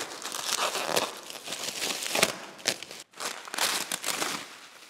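Black plastic pallet wrap being torn and pulled off a pallet, crinkling and ripping in irregular bouts, with a short pause about three seconds in.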